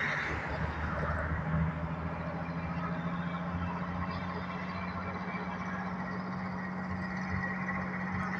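Road traffic with approaching trucks: a steady, even engine drone with a single held low tone that sets in about a second and a half in.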